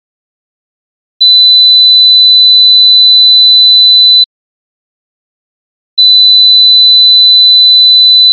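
Pure sine-wave test tone at about 4 kHz, a single steady high pitch with no overtones. It sounds twice, for about three seconds each time: once starting about a second in, and again starting about six seconds in, with silence between.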